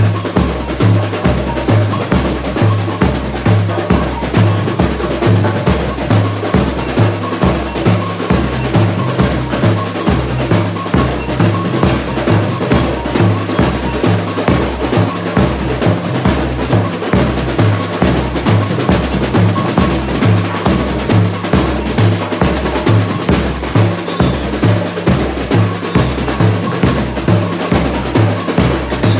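Samba school bateria playing a continuous samba beat: deep surdo bass drums strike about twice a second, alternating between a lower and a higher pitch, under a dense rattle of snare drums and small percussion.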